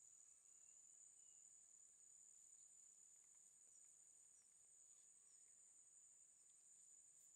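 Faint, steady high-pitched trill of insects, with a few brief, faint chirps over it.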